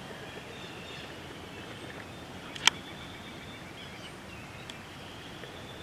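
Outdoor field ambience: a steady low hiss with faint, thin distant bird calls, and one sharp click about two and a half seconds in.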